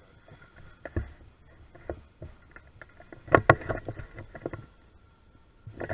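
Distant battery-powered RC jet boat running across the water: a faint steady motor whine. Over it are irregular knocks and rustles close to the microphone, loudest in a brief cluster about three and a half seconds in.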